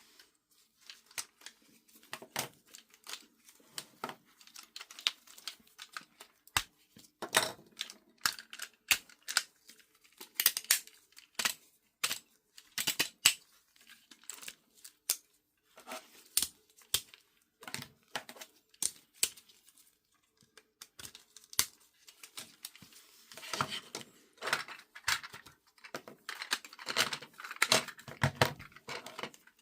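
Irregular sharp plastic clicks, snaps and rattling as a Zenkaioh Brumagine toy robot is handled, its parts clicking into place, busiest in two flurries near the end.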